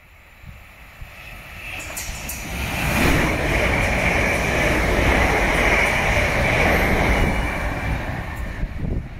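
South Western Railway electric multiple unit passing through the station at speed. It swells as it approaches into a loud rush of wheels on rail with a steady high whine, then fades as it draws away.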